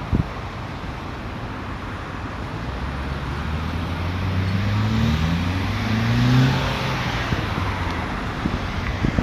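Road traffic at a roundabout: a motor vehicle accelerates past, its engine note rising in pitch and loudest about six seconds in, over steady tyre and traffic noise.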